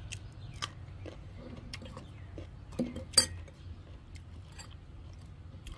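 Scattered light clicks and clinks of sliced green mango pieces dropping into a porcelain bowl and against the metal spoon in it, the loudest a little past three seconds in.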